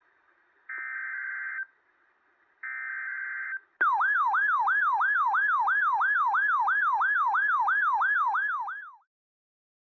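Emergency Alert System header: two roughly one-second bursts of buzzing data tones. Then a loud warbling attention tone of repeated falling sweeps, about three a second, which fades out after about five seconds.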